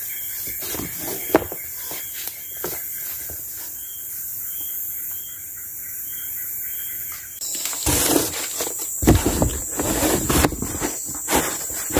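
Steady high drone of forest insects with faint taps and rustles as a large sheet of cardboard is handled. About seven and a half seconds in, louder close rustling and knocking take over as cardboard is fitted to the wooden pole frame.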